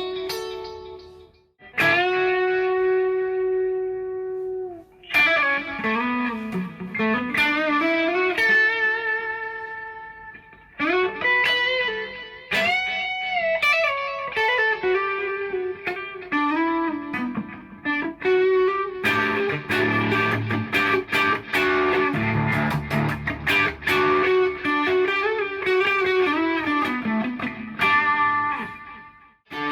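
PRS SE CE 24 electric guitar played solo. It plays single-note lead phrases with string bends and long sustained notes, then from about 19 seconds in, busier and faster playing with lower notes.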